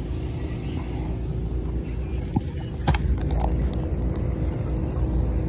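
A phone handled close to its microphone: rubbing and two knocks, the sharper one about three seconds in, over a steady low hum.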